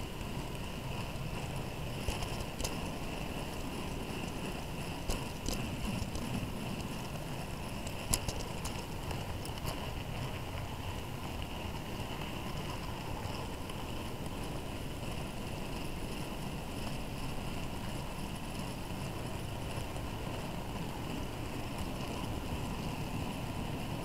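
Model railway mineral train running along the track, heard from on board a wagon: a steady rumble of wheels on rail with a few sharp clicks in the first ten seconds.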